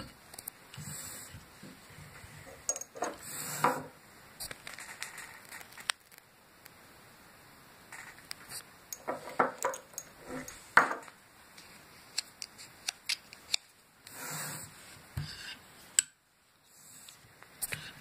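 Handling sounds of a bassoon reed tip profiler and a small glass of soaking water: scattered light clicks and clinks of metal and glass, with a few short rustling scrapes as the wet reed is handled and fitted onto the profiler's mandrel. The sound cuts out abruptly for a moment about two seconds before the end.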